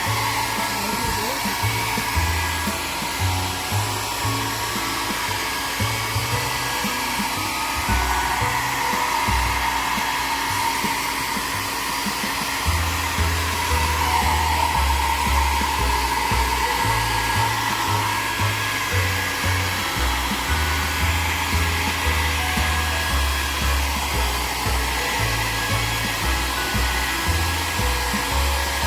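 Hair dryer blowing steadily while drying a pet's coat after a bath, with an uneven low rumble underneath.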